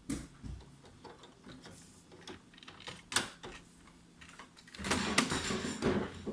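Clicks and taps of an ink cartridge being handled and fitted back into an HP Deskjet F4280 printer, with a sharp click about three seconds in. Near the end the printer's mechanism runs for about a second and a half.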